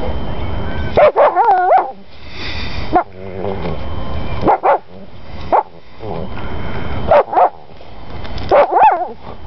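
Labrador retriever yipping and giving short, whining barks in about six bursts while digging at a mole hole with his nose in the dirt. Noisy sniffing and snuffling swells up between the yips.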